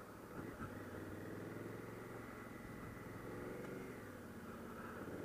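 Honda Africa Twin CRF1000L's parallel-twin engine running faintly and steadily at town-riding speed, growing a little louder near the end. Two light knocks come about half a second in.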